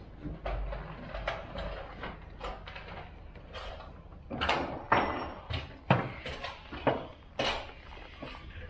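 Irregular knocks and clicks of tools and metal parts being handled, about a dozen strikes, the loudest in the second half, one with a brief metallic ring.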